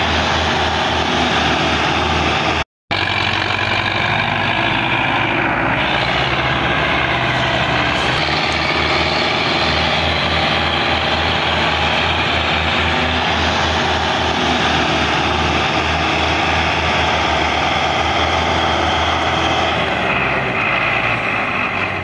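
Belarus 510 tractor's diesel engine labouring under a heavy load, running steadily at high power as it pulls a loaded sugarcane trolley up a ramp. The sound cuts out completely for a moment about three seconds in.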